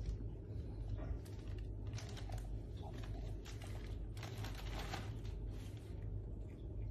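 Light crinkling and rustling of a thin plastic plant sleeve as a cat's head moves about inside it, in short irregular bursts, over a steady low hum.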